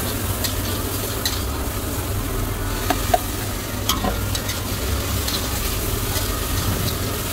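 Chopped onions sizzling and frying in a large metal kadhai while a metal spatula stirs and scrapes through them. There are a few sharp clinks of metal on the pan around three and four seconds in, over a steady low rumble.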